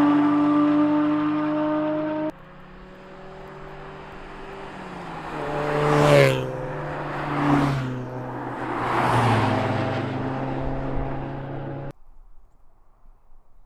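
Cars driving past one after another on a winding road, each engine note swelling as it nears and dropping in pitch as it goes by, with three pass-bys peaking in the middle stretch. The engine sound cuts off abruptly about two seconds in and again near the end, leaving only faint outdoor background.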